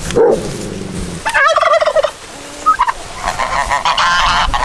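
Turkeys gobbling: a rapid, warbling gobble about a second and a half in, and a busier run of higher calls near the end.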